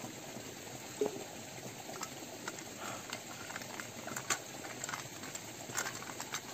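Footsteps on a wet, stony trail: irregular clicks and knocks of boots on rock and gravel over a steady hiss of rain.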